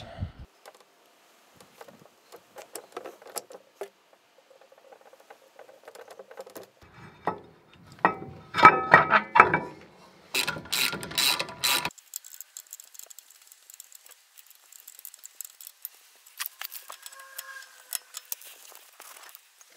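Metal clicking and clinking as brake pad retaining pins and clips are fitted into a disc brake caliper and the caliper is handled and fitted back on the hub, with a loud run of rapid metallic clicks about eight to twelve seconds in.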